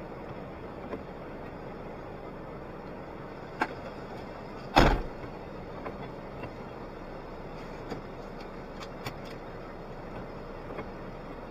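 Suzuki Jimny's driver door slammed shut about five seconds in: one loud thud, with a sharper knock just before it and a few light clicks afterwards as the driver settles into the seat.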